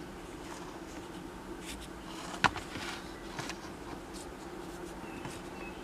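Faint scratching and rubbing as a toothed rubber timing belt is turned and flexed in the hand, with one sharp click about two and a half seconds in, over a steady low hum.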